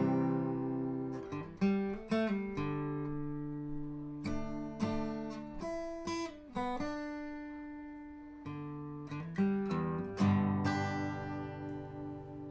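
Background acoustic guitar music: chords plucked and strummed every second or two, each ringing out and fading, with a quieter, sparser stretch midway.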